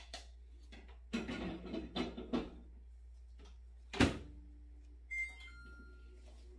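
Clatter and knocks of things being handled: a flurry of knocks about a second in, then one sharp knock about four seconds in, the loudest, followed by a short high two-note tone.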